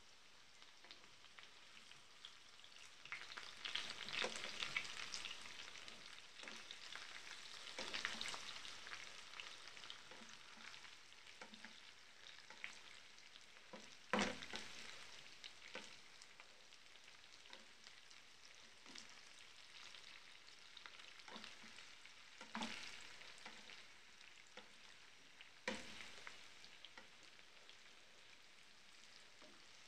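Diced potatoes frying in a pan, a faint crackling sizzle that swells for a few seconds at a time as they are stirred with a spatula. Three sharp knocks of the spatula against the pan come about halfway through and twice near the end.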